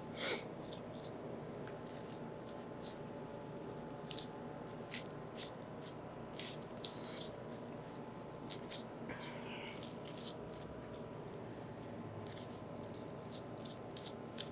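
A butcher's knife cutting through a raw beef chuck and separating the muscles along their seams: faint, scattered short scrapes and wet squishing sounds over a steady hum.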